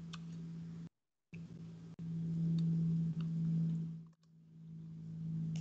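Steady low hum with a few faint clicks. It cuts out to dead silence briefly about a second in, comes back louder for a couple of seconds, then dips again near four seconds.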